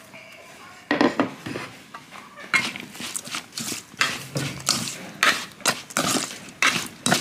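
A large spoon scraping and knocking against a metal mixing bowl while tossing a mushroom salad. It is fairly quiet for about the first second, then comes a run of repeated scraping strokes, two or three a second.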